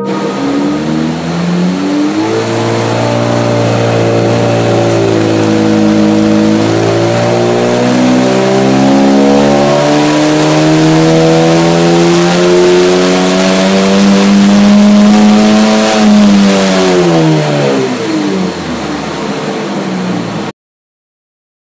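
Car engine revving up under load, its pitch climbing steadily for about fifteen seconds, then dropping away as it slows. The sound cuts off suddenly about a second before the end.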